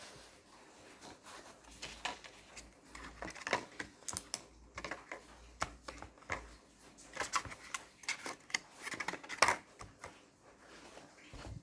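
Irregular light taps and clicks of small objects being handled, in quick clusters like typing, with the loudest click near the end.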